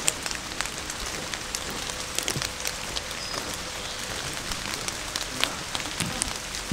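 Steady rain falling, with many irregular taps of drops landing close by.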